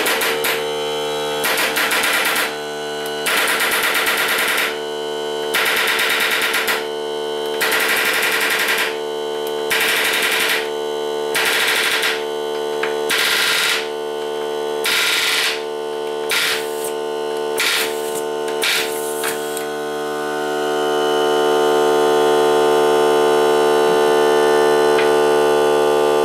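Ryobi cordless air compressor running with a steady hum while an air palm nailer hammers a nail in short rapid rattling bursts, about a dozen of them every second or two. The nail keeps failing to drive into the wood block. The nailer stops about two-thirds of the way in, and the compressor runs on alone, a little louder.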